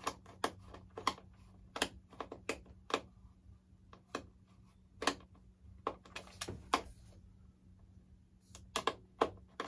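Irregular sharp clicks and taps from a screwdriver turning a loose screw and handling the plastic and foam airframe of an RC model jet, over a faint steady low hum.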